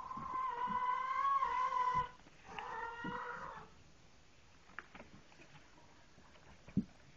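An animal calling twice, in drawn-out pitched calls: the first lasts about two seconds, the second is shorter. A few faint knocks follow, one sharper near the end.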